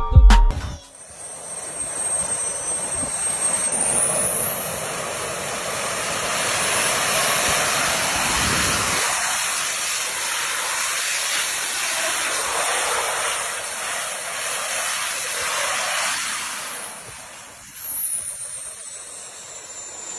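Jet suit's small jet turbines running with a loud, steady hiss and a high whine; the whine rises about four seconds in as they spool up and falls away around seventeen seconds in as they spool down.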